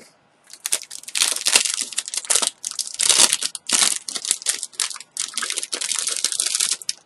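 Clear plastic bag crinkling in repeated bursts as it is handled and pulled open.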